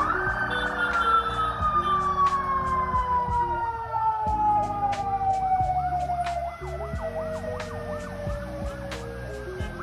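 Siren of a police escort vehicle, rising sharply and then winding down in one long, slowly falling tone, with a second, rapidly cycling siren sounding over it in the middle seconds.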